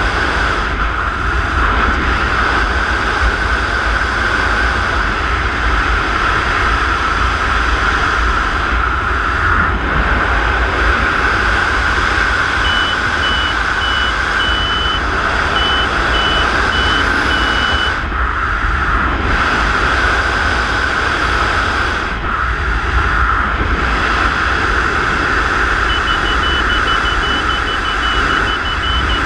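Steady rush of wind buffeting the microphone during wingsuit freefall, with a low rumble under it. A row of short high electronic beeps sounds about halfway through and starts again near the end.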